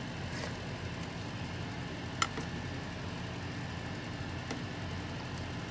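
A steady low hum in the kitchen, with a single sharp clink about two seconds in as a metal ladle touches the soup pot.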